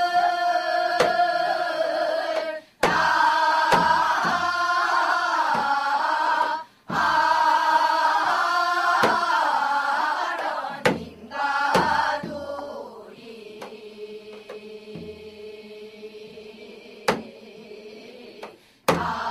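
A chorus of women and children sings Gyeonggi folk song (gyeonggi minyo) in unison, with single strokes on a janggu hourglass drum. Phrases break off briefly twice. About two-thirds of the way through, the singing drops to a quieter, long held note, and the full chorus comes back in loudly near the end.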